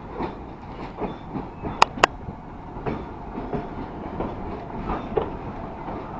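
A train running on the track, its wheels and carriages rattling and clicking over the rails, with two sharp metallic clicks close together about two seconds in.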